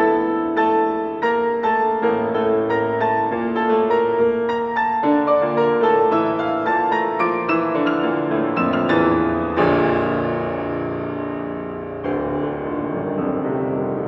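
Solo piano playing a quick succession of notes for about nine and a half seconds, then striking a loud chord that is left ringing and slowly fades, before softer playing resumes near the end.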